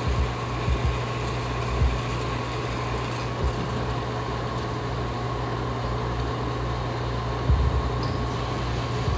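Steady electric motor hum and whir from a motor-driven kinetic sound installation, with a constant low drone, a faint steady high tone and a few soft low knocks.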